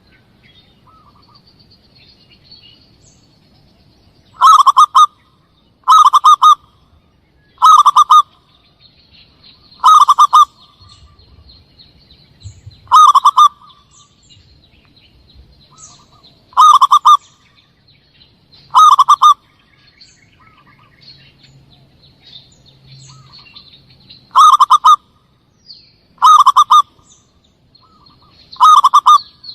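Zebra dove (perkutut) cooing call, played as a hunting lure: about ten short, loud calls repeat every two to three seconds. Faint high chirps of small birds run underneath.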